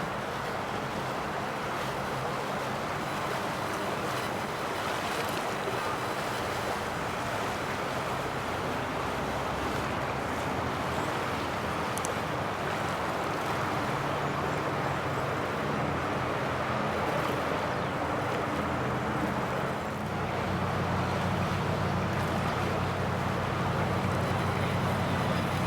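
Boat engines running with the rush of water and wind, a steady wash of noise; a low engine hum grows louder about twenty seconds in.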